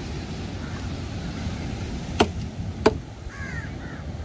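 Two sharp chops of a large curved knife cutting tuna on a wooden log chopping block, about two-thirds of a second apart, followed by faint crow cawing.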